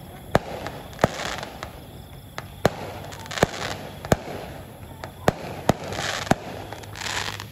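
Firecrackers going off: a string of sharp bangs at irregular spacing, about one a second, over a steady noisy background with brief stretches of hiss.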